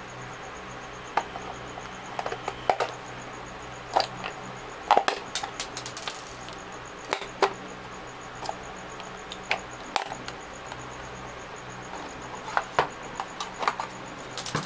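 Plastic case of a portable Bluetooth speaker being prised apart by hand: irregular sharp clicks and cracks as its locking clips give way, over a low steady hum.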